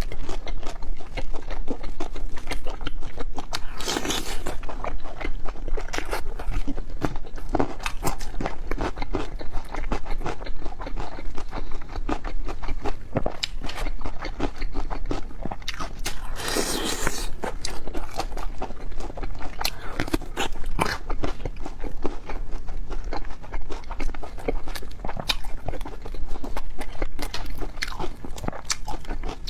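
Close-miked eating: steady chewing and biting with many short crunching clicks. There is a louder burst about four seconds in and another, longer one around seventeen seconds.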